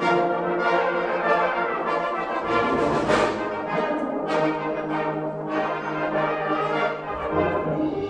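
A brass band playing a contest test piece, full ensemble sounding continuously with stacked sustained chords and several sharp accents.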